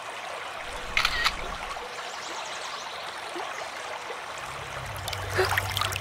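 Shallow river water flowing steadily, a continuous rushing trickle, with one brief sharper sound about a second in.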